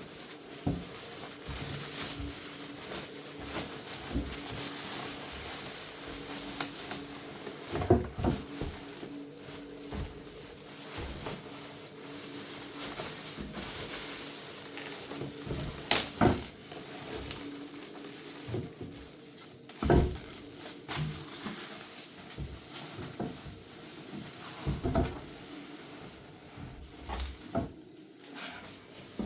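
Handling noises while unpacking a microwave oven: steady rustling of packaging, broken by several sharp knocks and thumps, with a faint steady hum underneath.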